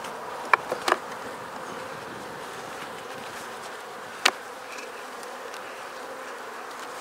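Dense, steady buzzing of a busy, populous honey bee colony in an opened hive. A few sharp knocks cut in, twice about a second in and once, louder, about four seconds in.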